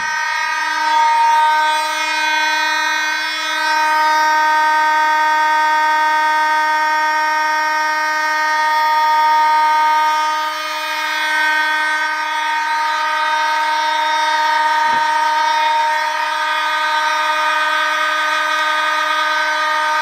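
Vintage vibratone electronic fire alarm horns sounding on continuous: one steady, unbroken tone. A short knock about fifteen seconds in.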